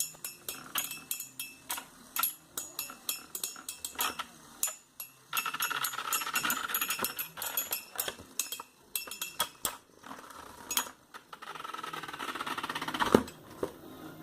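Beyblade spinning top and its plastic parts being handled: a run of sharp clicks, then a stretch of steady whirring. Near the end a rattling buzz grows louder and is cut off by a single sharp clack.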